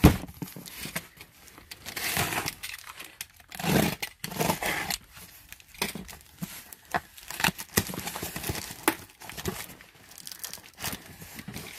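Packing tape and cardboard of a taped-up box being scraped, picked at and pulled by hand in irregular scratchy, tearing bursts, with a sharp knock on the box at the start.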